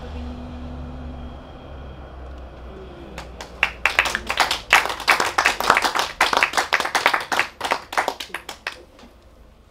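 A woman's voice holds the final sung note at the start, then a small audience claps: about three seconds in, a burst of hand-clapping sets in, with separate claps still audible, and it thins out and stops near the end.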